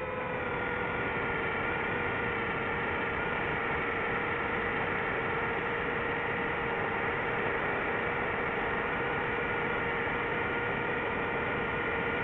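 DJI FPV drone's motors and propellers whining at one steady pitch over a rushing hiss, held at constant throttle in a smooth cruise.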